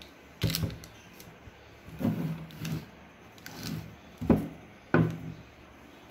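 Household containers being picked up and set down on a table: a series of about six knocks and clatters, the loudest two a little past the middle.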